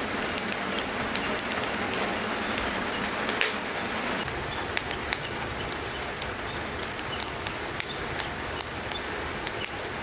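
Wood fire of lumber offcuts and split logs crackling, with many small sharp pops scattered over a steady hiss.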